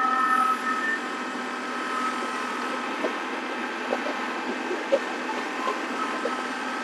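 Kubota compact tractor's diesel engine running under load as it drags a two-blade grading scraper through a gravel driveway, with scattered clicks of stones.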